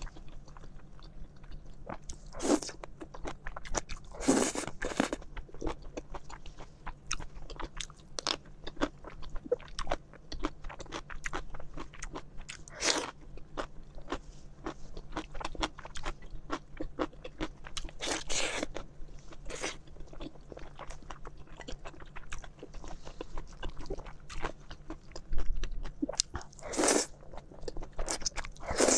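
Close-miked eating of noodles: many quick wet chewing clicks throughout, broken by several louder, longer slurps as strands are sucked in, one near the end.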